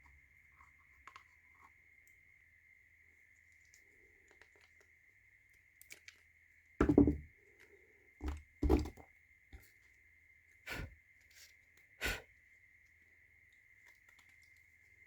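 A screwdriver prying laser-cut wooden pieces off a puzzle box and the pieces being handled: a few sharp knocks and clicks of wood from about seven seconds in, the first the loudest. A faint steady high whine runs underneath.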